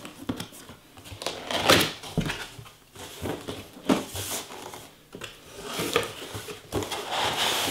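Cardboard box being opened by hand: the lid and inner flaps pulled open, with a few sharp knocks and scraping rustles of cardboard.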